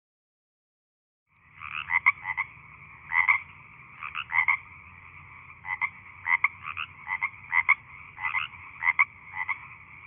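Frogs calling. The calls start about a second and a half in: short clucking notes, often in quick twos and threes, over a steady background chorus.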